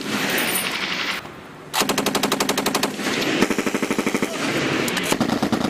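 Belt-fed machine guns firing several bursts of fully automatic fire, roughly ten shots a second, with a short lull a little over a second in before the firing resumes.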